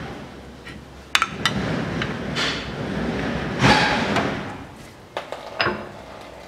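Metal tools clinking and scraping against the bare rear wheel hub of a Land Rover Defender: two sharp metallic clicks about a second in, short scraping sounds in the middle, and two more clicks near the end.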